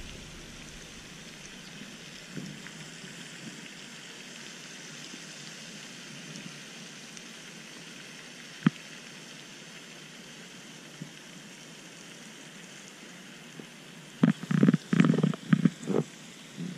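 Steady low outdoor hiss with a single sharp click partway through. Near the end come loud, irregular rustles and knocks as the seated angler shifts and the body-mounted camera is jostled.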